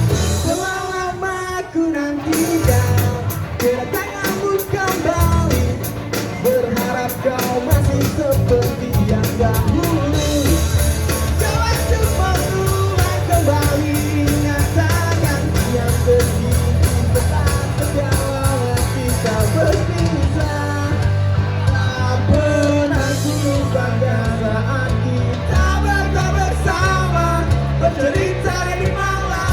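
Pop punk band playing live: a singer over distorted electric guitars, bass and a drum kit with steady cymbal hits.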